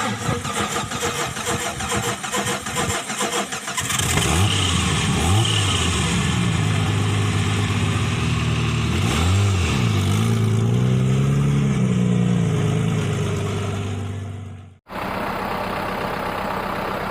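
Off-road 4x4 engine: a fast rattling for the first few seconds, then running and revving, its pitch rising and falling in several swells. After an abrupt cut near the end, a steady engine idle under a hiss.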